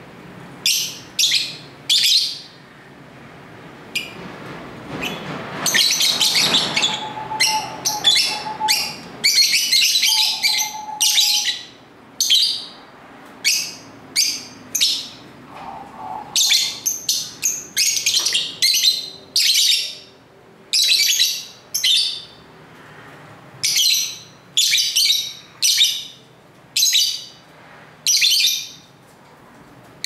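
Caged lovebirds chirping: short, shrill, high-pitched calls in quick runs of several at a time, with a dense flurry about a fifth of the way in.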